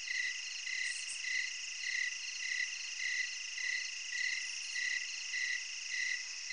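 Night chorus of crickets and other insects: a steady high trill with a chirp repeating evenly a little under twice a second.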